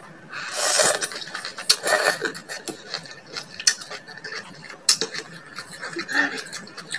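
Eating sounds: a slurp as a mouthful of water spinach in coconut milk is drawn in about half a second in, then wet chewing and smacking with a few sharp clicks, some of them from chopsticks tapping the bowl.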